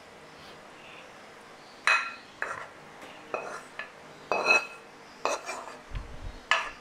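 A serving spoon clinking and scraping against a ceramic plate and pan as sweet-and-sour vegetables and sauce are spooned over fried fish: a run of about eight sharp clinks, starting about two seconds in.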